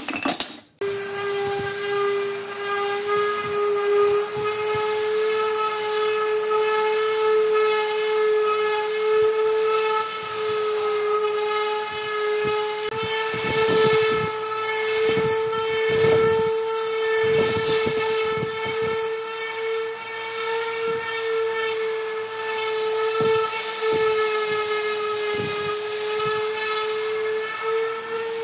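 Electric random orbital sander running on a wooden tabletop. It gives a steady whine that starts about a second in, with a few brief rougher patches midway.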